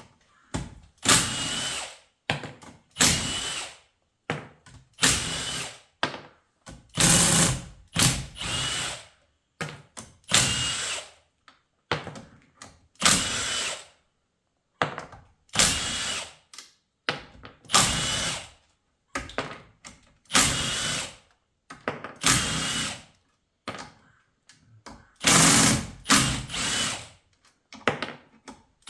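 Handheld power tool run in repeated short bursts, each about a second long with brief pauses between them, spinning out bolts on an automatic transmission case.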